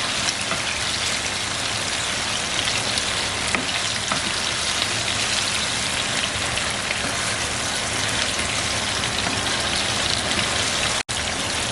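Chicken adobo sizzling steadily in a pan as its soy-sauce and vinegar sauce cooks down in the oil. The sizzle breaks off for an instant near the end.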